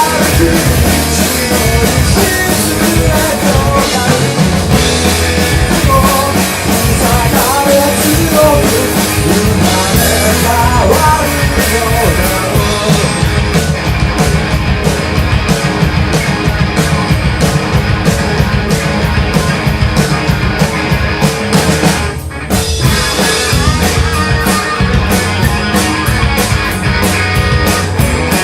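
Live rock band playing an original song: drum kit, electric guitar and bass with a singer's voice over the first part, then an instrumental stretch with a fast, steady drum beat and a brief break about two-thirds of the way through.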